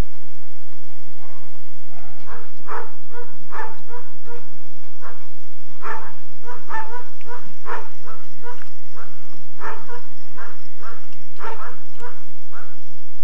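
A dog barking repeatedly in short, sharp barks, about two a second, starting about two seconds in.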